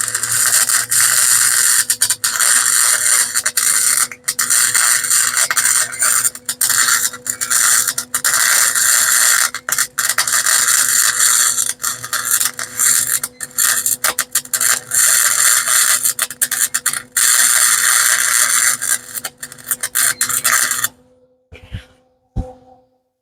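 Welding arc crackling and sputtering as a bead is laid on a steel shock mount, broken by a few short pauses and stopping near the end. The arc is jumping even though the metal was cleaned, which puzzles the welder.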